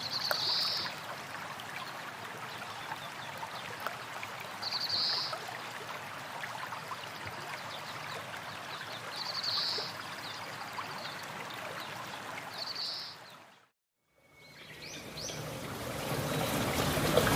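Steady rush of a waterfall or stream, with a short high bird chirp about every four to five seconds, four in all. Near the end the sound cuts out for under a second, then the water fades back in and grows louder.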